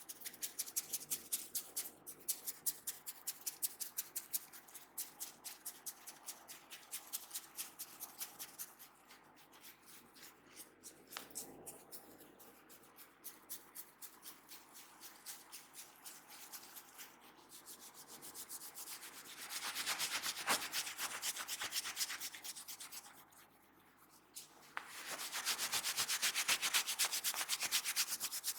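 A barber's hands rubbing briskly over hair and skin in a massage, in rhythmic strokes of about two to three a second. Later come two longer, louder spells of fast continuous rubbing.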